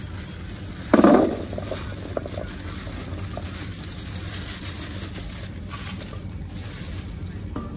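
Small round fruits are tipped out of a plastic bag onto a stainless steel tray. There is a loud tumbling rattle about a second in, then softer crinkling of the bag, over a steady low hum of traffic.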